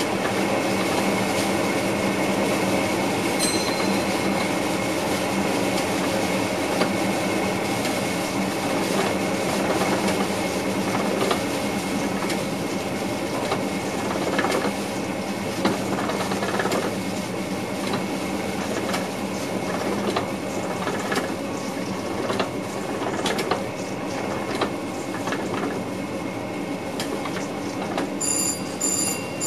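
Cab of a VIRM double-deck electric train running along the line: a steady rumble and hum of the running train, with clicks from the wheels on the track about once a second in the second half. Near the end come a few short, high electronic beeps.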